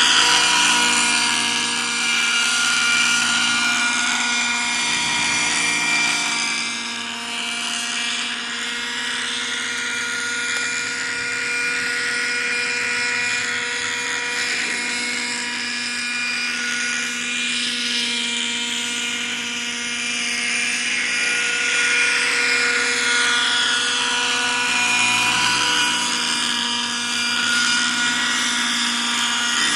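Thunder Tiger Raptor 50 nitro RC helicopter in forward flight, its glow engine and rotor making a continuous high whine. The pitch rises and falls as it passes and turns.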